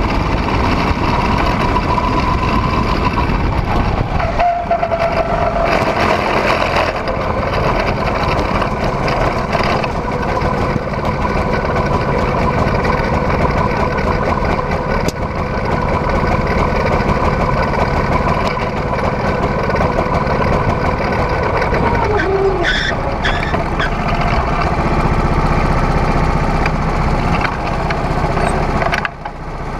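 Go-kart engine running at speed, heard from the driver's seat; its pitch holds steady for most of the lap, then falls about two-thirds of the way through as the kart slows to low revs.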